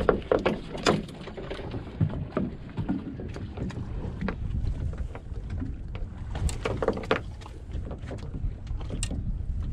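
Wind rumbling on the microphone over a boat at sea, with scattered sharp clicks and knocks as a freshly caught black sea bass is unhooked on the deck.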